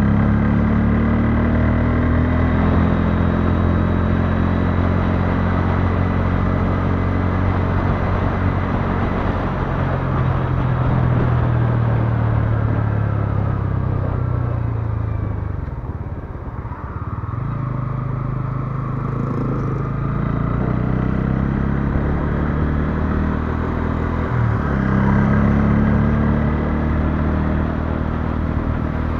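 Bajaj Pulsar N160's single-cylinder engine running while riding at road speed, with wind and road noise. About halfway through, the revs fall away and then climb back, and they dip briefly again toward the end.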